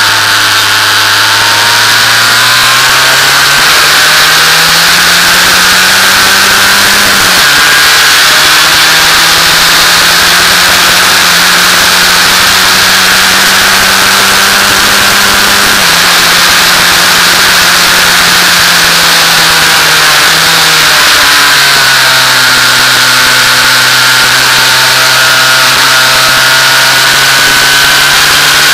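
Formula 2000 race car's engine heard from the cockpit at speed. The pitch climbs, drops sharply with a gear change about seven seconds in, holds, steps down twice more, once around the middle and once about two-thirds through, then runs steady. The engine is held to about 5000 rpm by a glitch.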